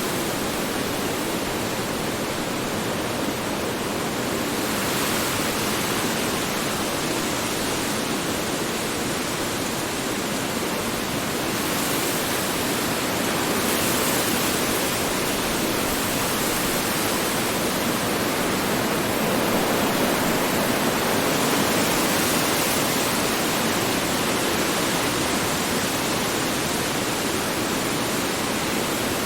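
Strong wind blowing steadily: a dense rushing noise with gentle swells in strength.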